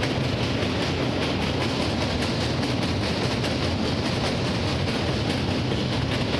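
Express train running over a steel truss bridge, heard from on board: a steady rumble of wheels on the rails that holds at one level throughout.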